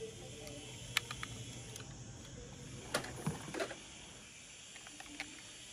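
A few light clicks and taps of toy ambulances being handled and set down on a tabletop: one about a second in, a small cluster around the middle, and one more near the end, over a faint low background hum.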